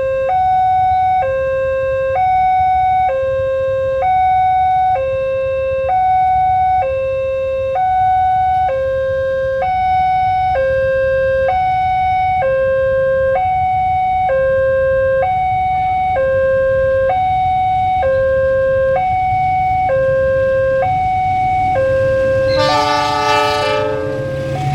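Indonesian railway level-crossing alarm sounding: an electronic warning tone that alternates between a lower and a higher pitch, each held about a second, over a low rumble. Near the end a train horn sounds loudly for about a second and a half.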